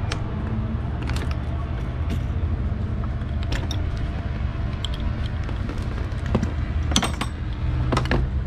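Handling noise on a car-mounted camera: scattered sharp clicks and knocks, the loudest about seven seconds in, over a steady low rumble.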